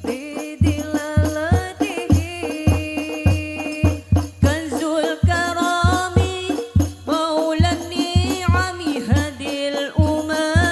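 Banjari-style Islamic devotional music: frame drums and a deep drum keep a steady beat, about two to three strokes a second, under a wavering, gliding melodic line.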